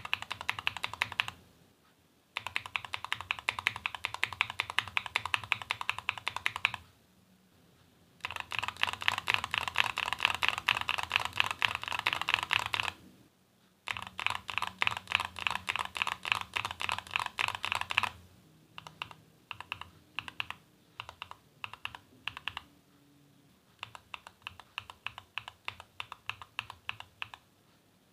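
Mechanical keyboard with stock tactile switches being typed on: four runs of fast typing with short pauses between them, then slower single key presses in the last third.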